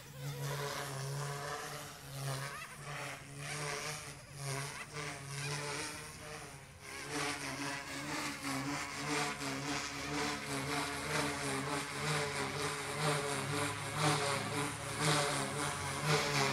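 Goosky S2 RC helicopter in flight: a steady whine from its electric motor and spinning rotor blades, swelling and fading as the helicopter moves about the sky.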